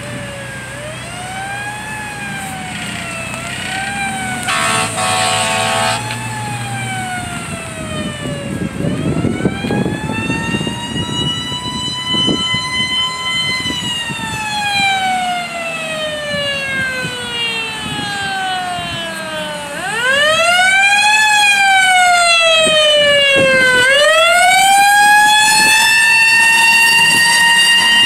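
A fire engine's siren wails, its pitch sweeping up and down, quickly at first and then in long slow rises and falls. A flat horn blast sounds about five seconds in. The siren grows much louder about two-thirds of the way through.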